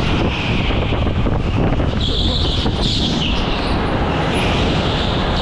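Indoor go-kart heard from on board while racing through the corners: a steady rumble and rush of noise, with a high hiss that swells and fades.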